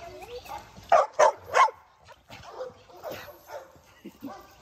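Pit bull barking: three loud, sharp barks in quick succession about a second in, followed by fainter scattered sounds.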